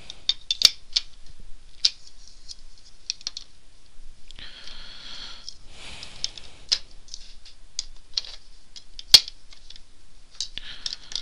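Bedlam cube puzzle pieces clicking and knocking against each other and the desk as they are fitted together, in irregular taps with one louder knock about nine seconds in.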